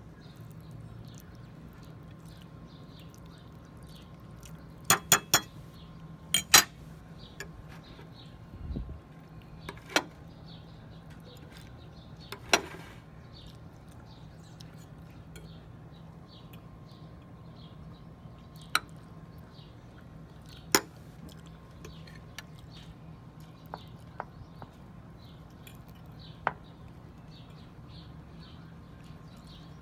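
A metal spoon clinking against ceramic dishes in short, sharp clinks: a quick cluster about five to seven seconds in, then single clinks spaced several seconds apart.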